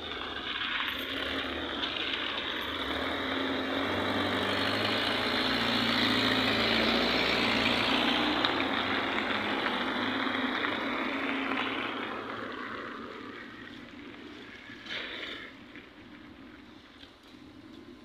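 Cars driving past on a wet, slushy road: tyre noise and engine rumble swell to a peak and fade away. A brief sharper sound comes about fifteen seconds in.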